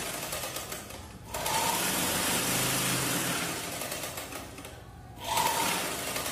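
Grover sewing machine driven through its belt by a Hero electric motor, running in spurts as the foot-pedal speed control is pressed and let off. It stops briefly about a second in and again near five seconds, with a short high whine from the motor each time it picks up speed.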